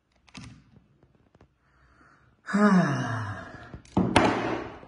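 A man's heavy, voiced sigh about halfway through, falling in pitch as he breathes out, followed by a shorter breathy exhale near the end. Faint clicks come before it.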